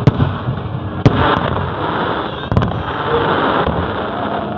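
Fireworks going off: a few sharp bangs, about a second apart early on and again midway, over continuous crackling.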